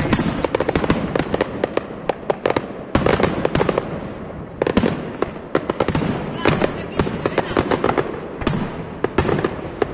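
Fireworks display: aerial shells bursting in a rapid barrage of sharp bangs and crackling. A heavy burst comes about three seconds in, followed by a brief lull around four seconds, then another run of rapid reports.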